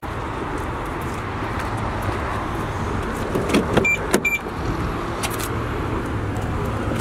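Steady outdoor traffic hum. About four seconds in, a BMW sedan's door is unlocked and opened: a few clicks and two short high beeps, then the door latch clicks.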